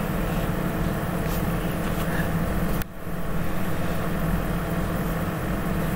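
Steady low mechanical hum of a running motor, dipping briefly about halfway through.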